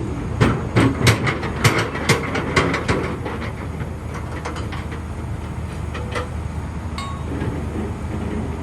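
Diesel engine of a Cat 320D2 excavator running steadily, with a quick run of about a dozen sharp metallic clanks and knocks in the first three seconds.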